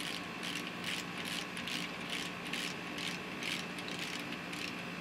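Hand ratchet wrench clicking in quick back-and-forth strokes, about two to three a second, running down connecting-rod cap nuts.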